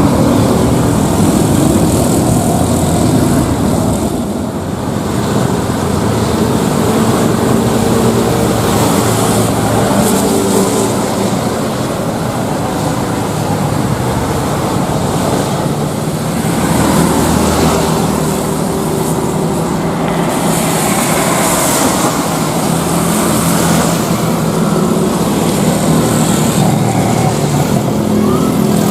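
Jet engines of an airliner running loudly: a continuous rushing noise with steady low engine tones, dipping briefly about four seconds in and swelling again a little past halfway.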